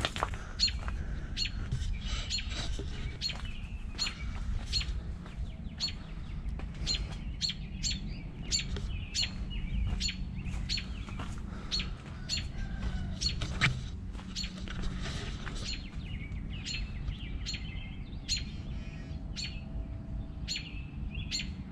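American robin giving short, sharp alarm calls over and over, about one or two a second: the scolding of a parent bird at an intruder near its nest of young.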